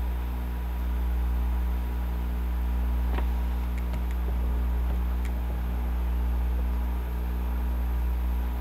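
Cooling fan on an electronic DC load tester's heatsink running steadily, with a low hum and several steady tones. A few faint clicks sound in the middle.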